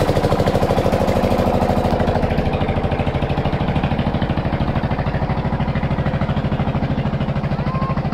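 Tubewell pump engine running with a fast, even chugging, about ten beats a second, slowly growing fainter.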